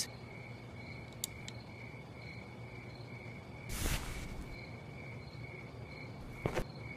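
Crickets chirping steadily as a night ambience, with a brief rustling swell about four seconds in and a short knock near the end.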